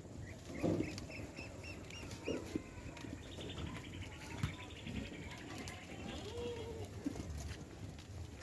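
Small birds chirping: a quick run of short, repeated high notes, then a longer high trill that falls slowly in pitch, with a few faint low knocks underneath.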